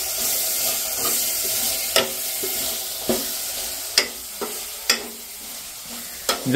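Shredded cabbage and chillies sizzling as they are stir-fried into sambharo, with a spatula knocking and scraping against the pan about once a second.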